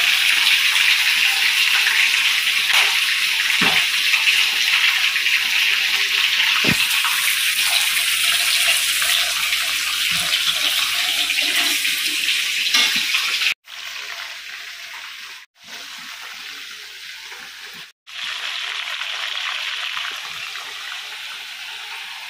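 Chicken pieces deep-frying in hot oil in a steel wok, a steady loud sizzle. In the second half it breaks off briefly three times and comes back quieter.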